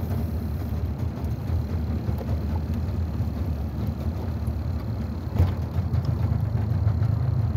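Boat engine idling with a steady low rumble while it warms up, with one brief knock about five and a half seconds in.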